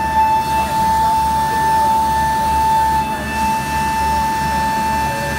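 WIDIA VSM890 shoulder milling cutter milling an aluminium plate on a CNC machining centre, giving a loud, steady high-pitched whine that holds one pitch throughout.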